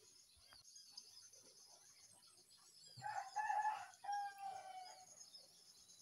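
A bird's loud two-part call about three seconds in, the second part falling in pitch, over faint high chirping of insects and small birds.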